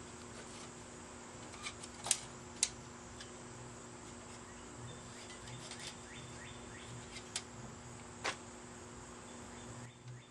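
A few sharp clicks and taps from hand tools working on a bicycle's rear rack as its parts are taken off, over a steady low hum.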